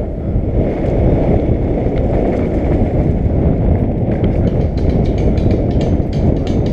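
Downhill mountain bike ridden fast down a dirt trail: a steady low rumble of knobby tyres over dirt and rock, with the bike's chain and frame clattering in quick sharp clicks from about four seconds in as the trail gets rougher.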